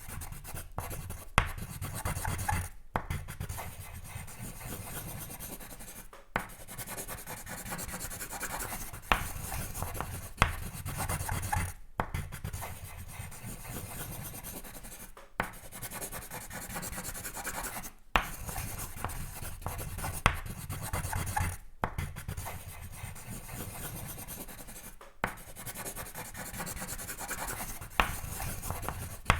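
Sketching on paper: a drawing tool scratching and rubbing in long runs of strokes, broken by short pauses every few seconds, with an occasional sharp tap.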